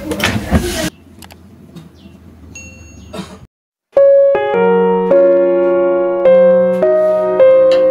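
Gentle electric-piano background music starts about four seconds in, after a brief silent gap. Before it there is a quieter stretch with one short high tone.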